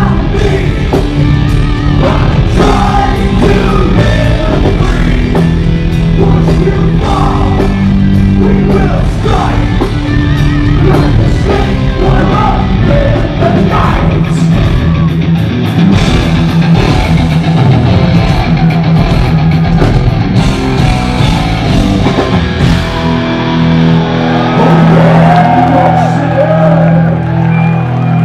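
Heavy metal band playing live: distorted electric guitars, drums and a male lead vocal, loud throughout.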